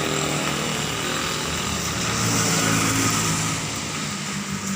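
A small engine running steadily: a low, even hum with a hiss over it.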